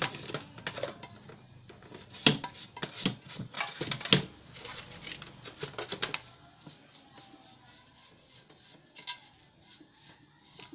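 Clicks and knocks of hand tools being handled on a wooden workbench: a busy run of sharp taps for the first six seconds, then mostly quiet with a single click about nine seconds in.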